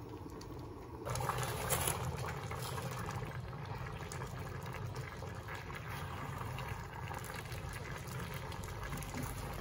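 A pot of kidney bean and sweet potato stew simmering while a wooden spoon stirs through the thick mixture, making a steady wet bubbling and squelching with small ticks. It is quieter for about the first second, then the stirring and bubbling come in and run on steadily.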